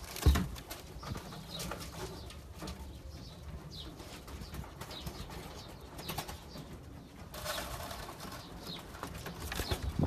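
Domestic racing pigeons cooing and shuffling in a loft, with a sharp thump just after the start and a burst of rustling, wing-like noise about three-quarters of the way through.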